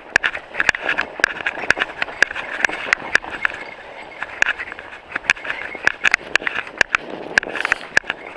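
Mountain bike rolling along a snowy trail: tyres crunching on snow, with irregular sharp clicks and rattles of the bike over bumps, several a second.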